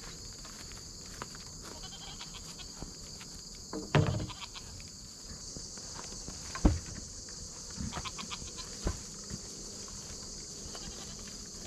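A Nigerian Dwarf goat bleats once, about four seconds in, over a steady high hum of crickets. A few sharp knocks follow, the loudest about halfway through.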